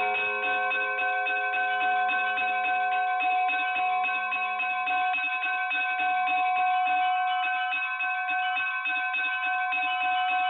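Church bells pealing: many quick strikes of smaller bells over the steady, overlapping ringing of several bell tones.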